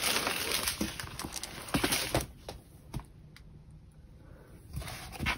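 Plastic film over a diamond painting canvas rustling and crinkling, with light clicks, as the canvas is handled. It is loudest for the first two seconds, quieter with a few clicks in the middle, and rustles again near the end.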